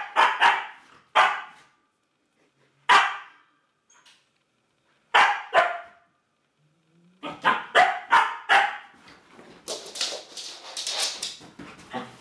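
Siberian husky puppy play-barking, short sharp barks in twos and threes with pauses of a second or two between them, then a quicker run of barks. Near the end, a stretch of rustling and scuffling movement.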